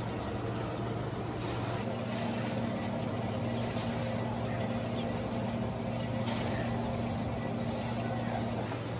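Steady hum of running workshop machinery, with a second, higher steady tone coming in about two seconds in and dropping out near the end.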